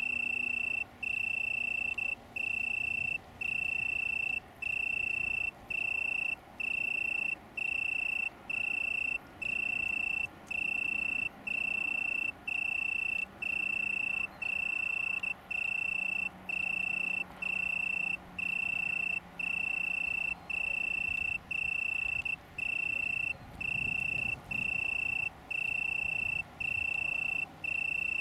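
Male Italian tree cricket (Oecanthus pellucens) singing: a clear, pure-toned trill repeated about once a second, each phrase nearly a second long with a short break between.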